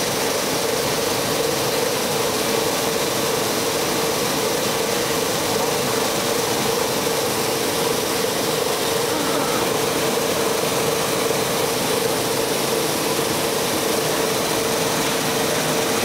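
Brush-roller potato peeling and washing machine running steadily: its motor-driven rollers turn with a constant hum under an even hiss of spray water.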